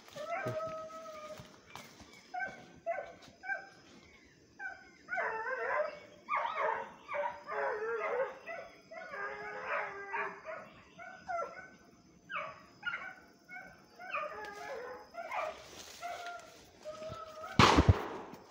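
Hunting dogs baying on the trail of a coati, a near-continuous run of short howling barks and yelps. A single loud bang comes near the end.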